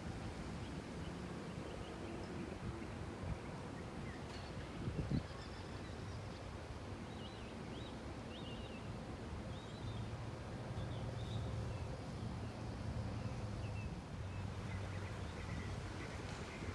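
Outdoor background noise with a few short, high bird chirps. A low machine hum comes up in the second half, and there are a couple of soft knocks.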